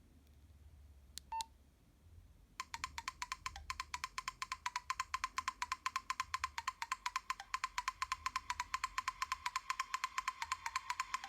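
A couple of keypad clicks with a short beep from a Nokia 112 phone. Then a percussive ringtone plays through its small speaker: a fast, even ticking with a thin tone, getting louder.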